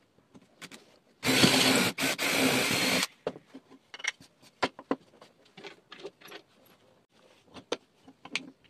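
Cordless drill running at speed, boring a hole through a wooden strip for about two seconds with a short pause midway. Then scattered light knocks and clacks as the wooden pieces are handled and brushed off.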